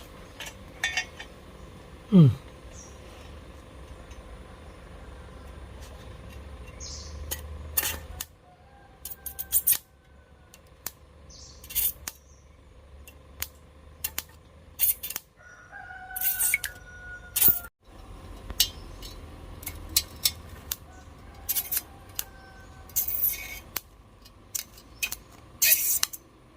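Irregular sharp crackles and snaps of a homemade 12 V battery welder's carbon electrode arcing against an iron pipe, only managing brief spot welds rather than a steady arc. A loud, short sliding tone that falls in pitch sounds about two seconds in.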